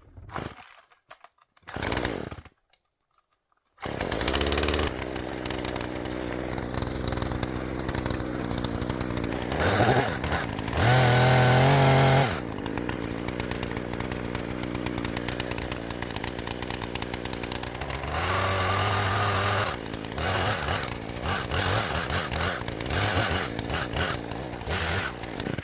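A few short handling sounds, then a chainsaw starts about four seconds in and runs continuously, revving up hard twice as it cuts a frozen down tree into a support pole, and stops at the end.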